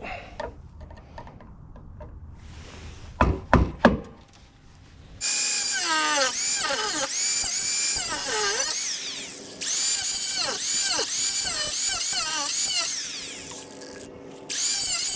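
Power drill drilling out the rivet that holds a door lock actuator in the door. A couple of sharp knocks come first; then, about five seconds in, the drill starts with a high whine whose pitch keeps sweeping up and down as the bit bites into the rivet. It stops briefly near the end, then runs again.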